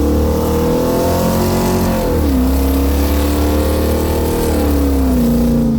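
Small-block Chevy 406 V8 under way, its exhaust running through side pipes with Cherry Bomb muffler inserts. The engine pitch rises, drops sharply about two seconds in, picks up again and holds, then falls off near the end.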